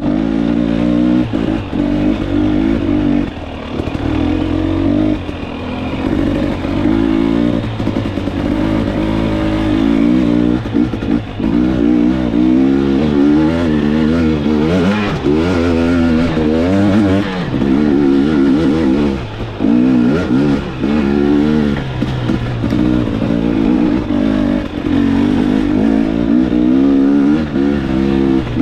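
KTM 250XC TPI two-stroke dirt bike engine, fitted with a TSP performance kit, running under load while being ridden off-road. Its pitch keeps rising and falling as the throttle is opened and rolled off, with brief dips in loudness.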